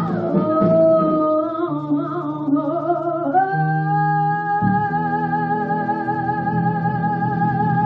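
Music: a wordless high vocal line that glides for the first few seconds, then holds one long note with vibrato from about three seconds in, over sustained lower chords.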